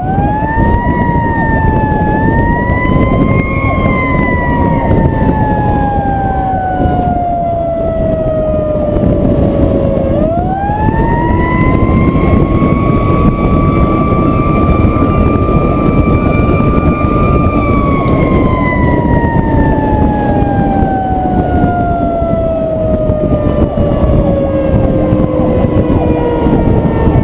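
Fire truck siren wailing: it climbs to a high pitch, falls slowly, winds up again about ten seconds in, holds its top pitch for several seconds, then slides slowly down. Under it a loud, steady rumble of wind and road noise from the moving truck.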